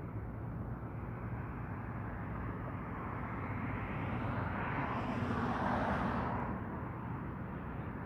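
Low rumble of a distant passing vehicle, swelling about halfway through and easing off near the end.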